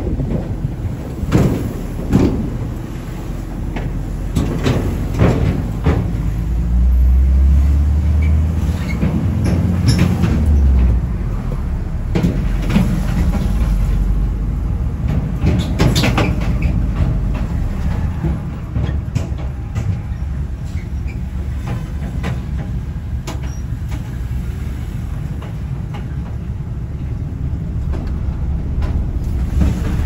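Car driving over the Demerara Harbour Bridge, a floating pontoon bridge: steady road rumble with sharp knocks as the tyres cross the deck joints. A deeper rumble swells for a few seconds around the middle.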